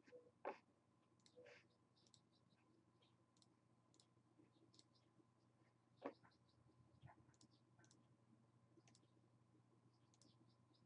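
Faint computer mouse button clicks, scattered irregularly, with the two sharpest about half a second in and about six seconds in, over a faint steady low hum.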